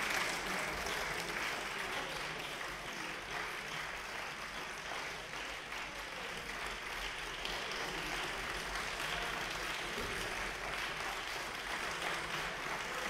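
Members of parliament applauding with steady hand-clapping, a little louder at first and easing slightly after a few seconds.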